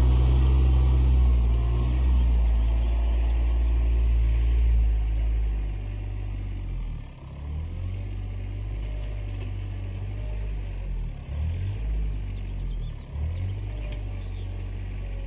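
RK24 compact tractor's engine running, loud for the first five seconds or so, then dropping to a lower, steady level with a few brief dips.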